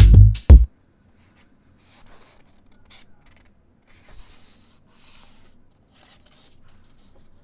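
Piano music stops about half a second in, followed by faint, scattered scratching strokes on paper from drawing or painting materials.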